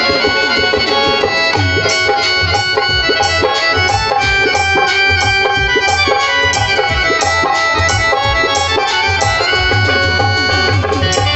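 Live Indian devotional music: a harmonium and an electronic keyboard hold sustained notes over a dholak beating a steady, quick rhythm with sliding bass strokes.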